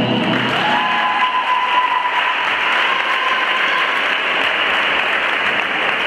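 Audience applauding after a routine, starting as the music stops. A single thin tone slides up about a second in and holds for about three seconds over the clapping.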